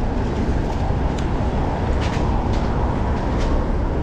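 Wind buffeting on a chest-mounted GoPro action camera while cycling, mixed with steady road and traffic rumble, and a few faint ticks about two seconds in.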